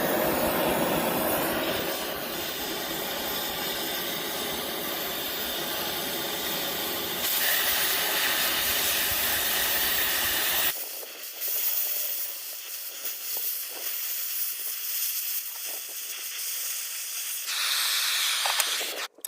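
Cutting torch hissing steadily as it cuts steel, with faint crackling, in several cut-together stretches. A low rumble lies under the hiss for the first half.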